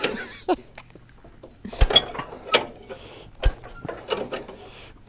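Scattered metallic clicks and clunks of parts being handled on the UAZ 469, with the sharpest knocks about two seconds in.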